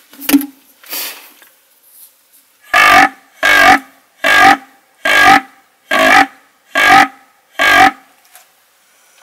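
A sharp knock near the start, then seven fallow-buck rutting groans in an even series, a little over one a second, each short and deep-pitched.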